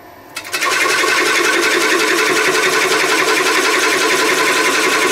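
A parting tool cutting into a spinning winged pine blank on a wood lathe: a fast, even clatter of the cut that starts suddenly about half a second in and holds steady.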